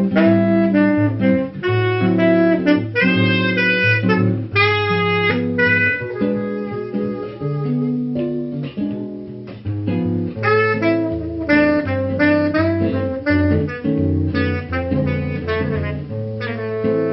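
Saxophone playing a melody over acoustic guitar accompaniment. The saxophone eases off for a few seconds midway while the guitar carries on, then comes back in.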